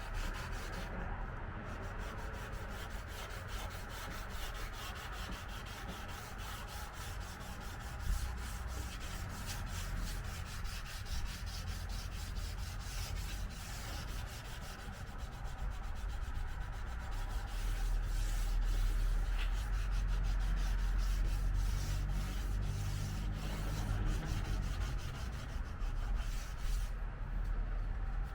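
Sandpaper rubbed over a car's painted body panel in rapid scraping strokes, flattening orange peel in the paint. The sound grows louder in the second half.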